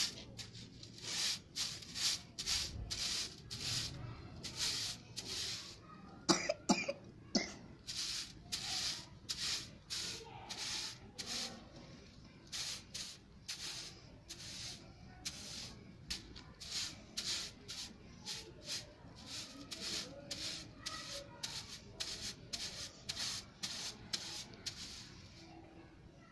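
A short grass-bristle hand broom swishing over bare concrete in quick repeated strokes, about two a second. A few sharp clicks come about six seconds in.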